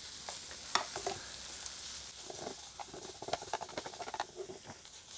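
Sausages and sliced onions sizzling in a frying pan on a butane camping stove, with a steady hiss. Metal tongs click and scrape against the pan many times as the onions are stirred.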